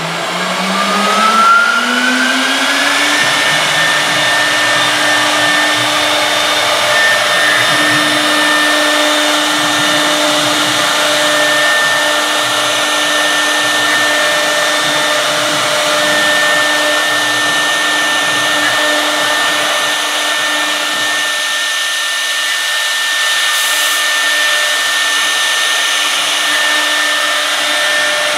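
Air-cooled spindle of a Leapion 1325 CNC router spinning up, its whine rising in pitch over the first few seconds, then running at a steady high whine while the bit routes grooves into a wooden board.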